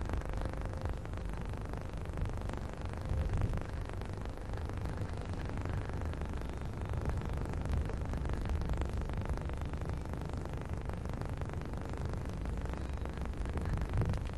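Steady low rumble of a taxi's road and engine noise heard from inside the cab.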